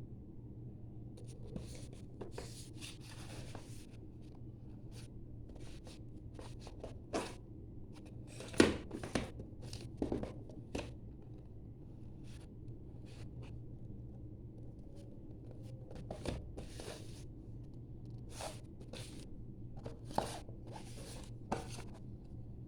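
Scattered clicks, taps and rustles of small objects being handled, over a steady low hum, with the sharpest click about a third of the way through.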